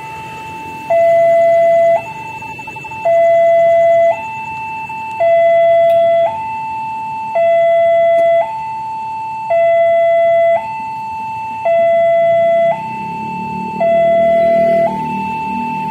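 Railway level crossing warning alarm sounding an electronic two-tone signal, switching between a lower and a higher tone about once a second, warning that a train is coming. Near the end a low rumble from the approaching train builds underneath.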